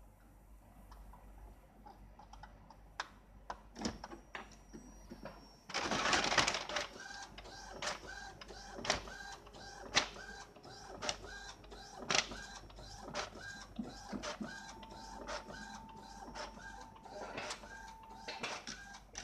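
Epson L210 inkjet printer feeding a sheet and printing: a loud burst of paper-feed noise about six seconds in, then the print carriage shuttling with a short whine and a click about once a second.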